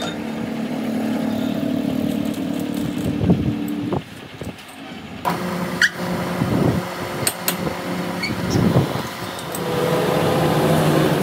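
Metal lathe: a steady machine hum, then a series of sharp knocks and clanks as a steel bar is set in the three-jaw chuck and the chuck is tightened. Near the end the lathe runs with the chuck and bar spinning.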